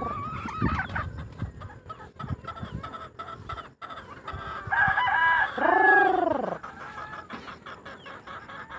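A gamecock rooster crows once about halfway through, a single long call of about two seconds. Chickens cluck around it.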